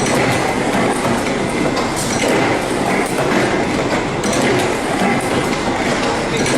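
Loud, steady mechanical clatter and rumble with no clear rhythm.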